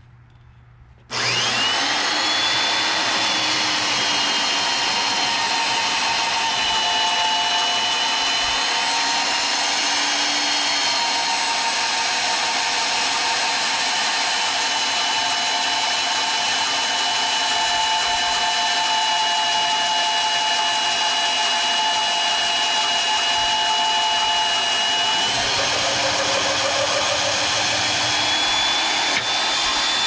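Hougen HMD904 magnetic drill starting up about a second in and running steadily while its cutter bores into a steel channel. A high motor whine settles slightly lower soon after the start and climbs back up near the end.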